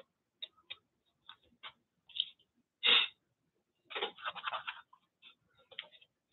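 Paintbrush dabbing and scrubbing across a paper collage: a run of light, irregular ticks and taps, with one louder scrub about three seconds in and a quick flurry of strokes a second later.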